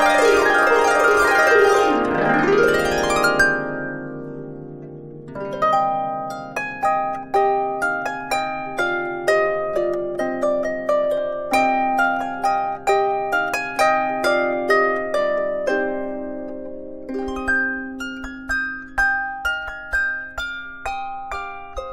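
Lever harp played solo: a fast sweeping glissando rings out over the first few seconds and dies away, then from about five seconds in, single plucked notes pick out a melody, each ringing and fading, over a sustained bass note.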